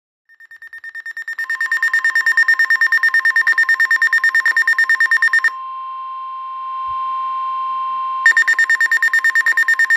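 NOAA weather radio receivers alarming for a warning: a rapid pulsing electronic beep that grows from silence over the first two seconds. About five seconds in it gives way to the steady weather radio warning tone, and near the end the beeping starts again.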